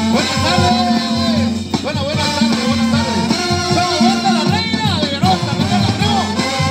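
Zacatecan tamborazo brass band playing live: trumpets and trombones carry the melody in sustained, sliding phrases over a steady tuba bass line and drum beats.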